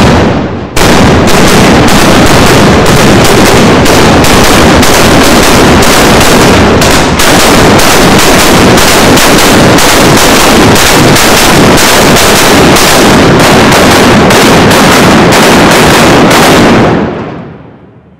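Rolling broadside from HMS Victory's gun ports: pyrotechnic blank charges going off one after another in a rapid, very loud run of blasts, about two a second. One blast, a short pause, then a continuous string for some sixteen seconds that dies away near the end.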